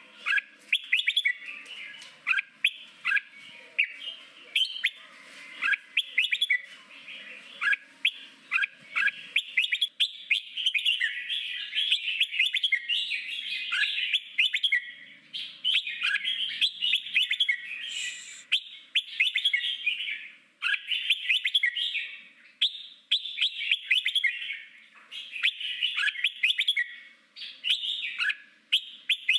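Red-whiskered bulbul singing: a continuous run of quick, bright chirping phrases.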